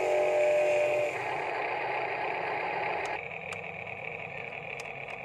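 Huina radio-controlled wheel loader working its bucket: a steady mechanical whir of the toy's motors and gearing, with a brief pitched tone in the first second. The whir drops quieter about three seconds in, and a few small clicks follow.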